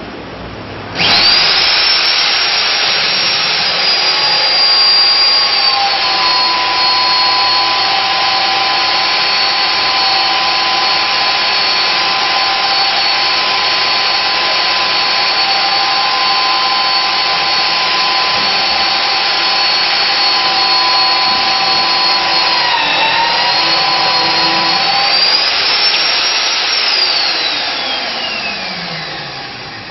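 Nitto Kohki Atra Ace magnetic drill motor starting up about a second in and running with a steady high whine while its annular cutter, under automatic feed, cuts through steel plate; the pitch drops slightly as the cutter takes the load. Near the end the pitch rises briefly, then falls away in a long descending whine as the motor winds down.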